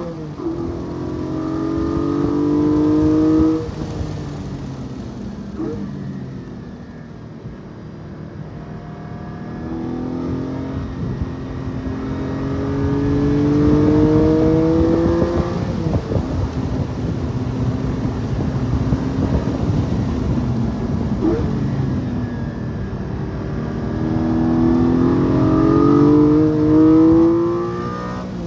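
Porsche 718 Cayman GT4's flat-six engine heard from inside the car under hard track driving: the pitch climbs steadily under acceleration, falls away about three and a half seconds in as the driver lifts, then climbs again in two more long pulls, the last cut off sharply near the end.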